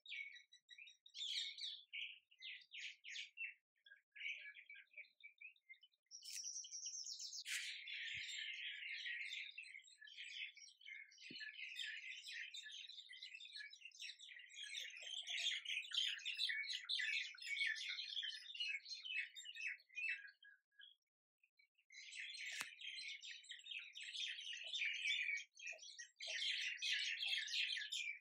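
Birds chirping and twittering: scattered chirps at first, thickening after about six seconds into a dense chorus of many birds, which breaks off for about a second two-thirds of the way through.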